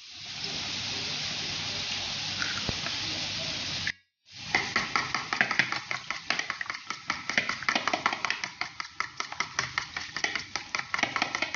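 A steady sizzle of bacon frying in a hot pan. After a brief break, a fork beats raw eggs in a bowl with rapid, regular clicking strokes against the bowl's side.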